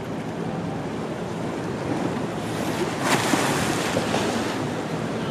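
Sea waves washing on a rocky shore, with wind blowing on the microphone; a louder wash of surf comes about three seconds in.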